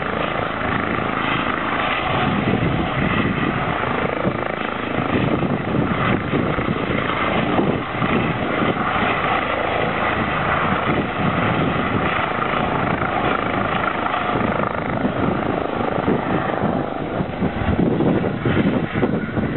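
Eurocopter EC135 helicopter running close by with its turbines and rotor turning steadily, then lifting off and moving away, its sound thinning near the end.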